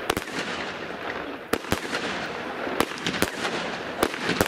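Consumer fireworks display: aerial bursts going off as about eight sharp bangs at irregular intervals, over a continuous crackling hiss.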